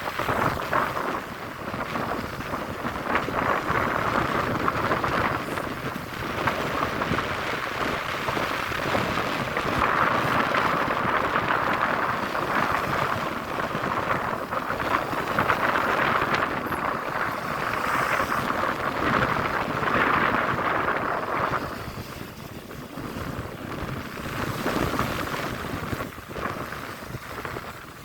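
Wind and sea waves rushing, swelling and easing every few seconds, with wind buffeting the microphone.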